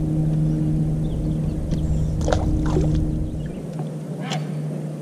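Electric bow-mount trolling motor on a jon boat humming steadily; its low rumble and upper tone drop away about three and a half seconds in, leaving a thinner hum. A few light knocks sound on the boat.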